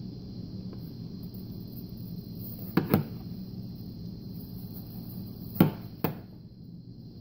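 Steady low hum with two pairs of short, sharp knocks, the first pair about three seconds in and the second about two and a half seconds later.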